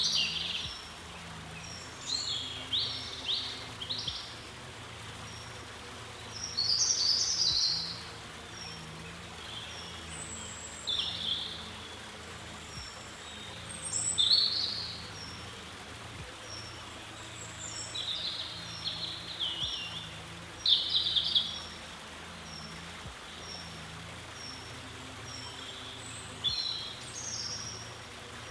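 Small birds chirping and singing: a thin high note repeated about once a second, with louder chirping phrases every few seconds, over a faint steady low hum.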